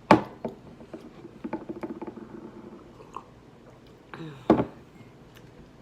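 Close-miked chewing of food, with many small crunchy clicks. A sharp knock comes at the very start and another about four and a half seconds in.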